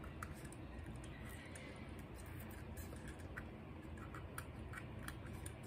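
Faint scattered clicks and light taps of a plastic BB pistol being handled and turned over in the hands.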